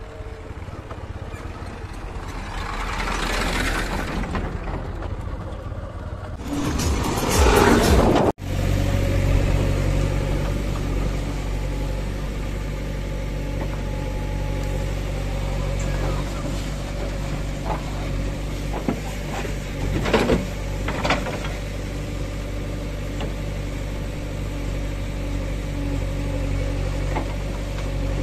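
A farm tractor's engine, growing loud as it nears. Then the diesel engine of a JCB 3DX Eco backhoe loader runs steadily as it digs and loads soil, with a few sharp knocks about twenty seconds in.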